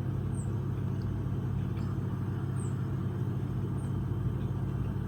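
A steady low hum, with short, high, falling songbird chirps a few times over it.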